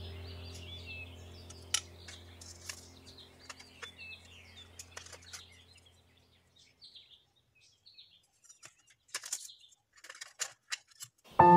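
Soft background music with bird chirps fading out over the first half, under scattered light clicks and taps of clear plastic set squares and a protractor being handled and laid into a metal geometry box. A new music track with ringing, bell-like tones starts right at the end.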